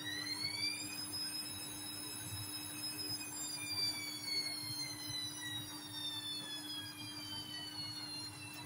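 Hotpoint WMA30 washing machine's drum motor whining through an intermediate spin. The whine rises until about a second in, holds briefly, then slowly falls as the drum winds down, over a steady low hum.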